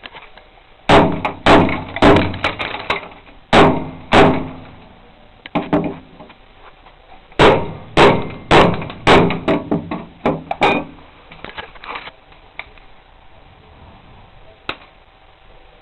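Hammering: two runs of loud, quick blows, each ringing briefly, with a pause between the runs and one last knock near the end.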